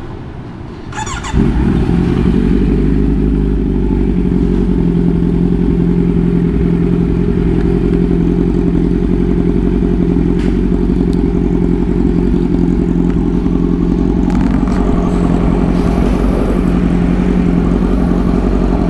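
Kawasaki Z900's inline-four engine starting about a second in, then idling steadily. A mechanic is checking it for lost top speed and finds the engine fine and the exhaust at fault.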